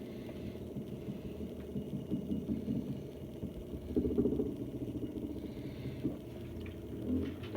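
Samsung top-load washing machine running with a steady motor hum and uneven surges of sound, loudest about four seconds in.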